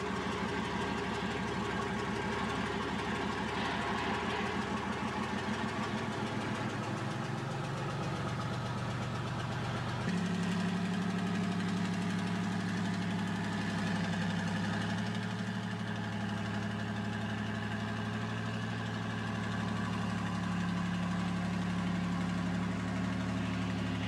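Diesel engine of a Lima Model 65-T shovel's four-axle truck carrier, a Cummins 220, running steadily as the carrier drives slowly. About ten seconds in the engine note changes suddenly and gets a little louder and lower.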